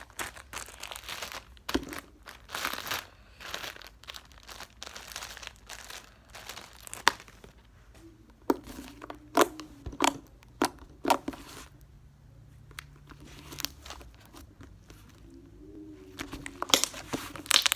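Plastic bag crinkling and crackling in irregular bursts as sticky slime is worked out of it by hand, busiest in the first half and sparser later.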